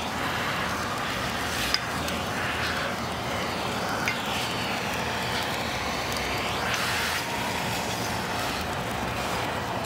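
Steady rushing hiss of a submerged arc welding flux recovery hose sucking up loose granular flux from along a finished weld seam. The hiss swells several times as the nozzle passes over flux, and there are a couple of sharp ticks.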